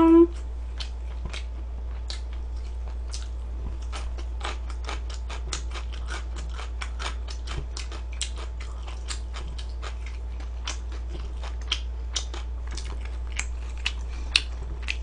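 Close-miked eating sounds: wet mouth clicks and smacks of chewing, several a second in an uneven run.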